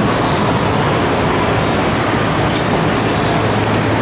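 Steady city traffic noise, an even rush of sound with a low hum underneath and no distinct events.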